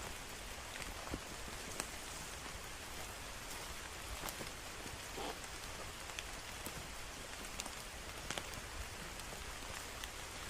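Steady rain falling, with individual drops tapping sharply and irregularly close by.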